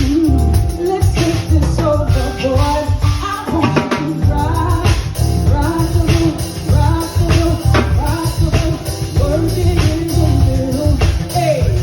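Live R&B/soul band of drums, bass guitar and keyboards playing a steady groove while a woman sings a melodic vocal line over it.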